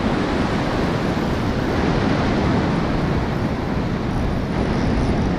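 Surf breaking and washing up a sandy beach as a steady, unbroken rush, with wind on the microphone.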